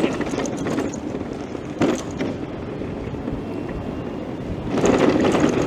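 Busy town-centre street noise with wind buffeting the microphone, a single brief knock about two seconds in, and the noise growing louder for the last second.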